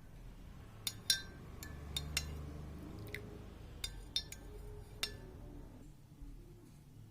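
Kitchenware clinking: about nine light, ringing clinks of utensils against crockery or glass over some four seconds, the loudest about a second in. A low hum runs underneath and dies away about six seconds in.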